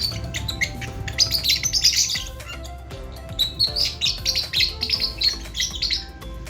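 Lovebirds chirping in quick high-pitched flurries, one about a second in and a longer one from about halfway until near the end.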